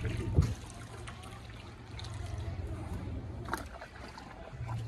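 Water trickling and lapping around a wooden gondola as it glides along a canal, with a single knock about half a second in.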